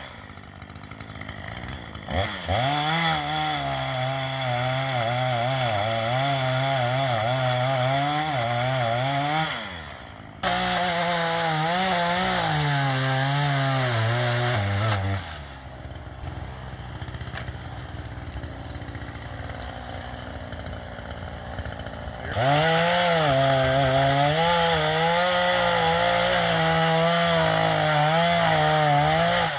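Chainsaw cutting into a tree, in three long stretches at full throttle with the engine pitch wavering under load. Between them it drops back to idle: briefly about ten seconds in, and for several seconds in the middle.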